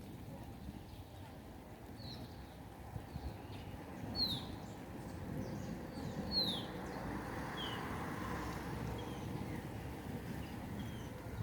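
A bird calling in a series of short, high, falling chirps, loudest about four and six seconds in, over a steady low background rumble.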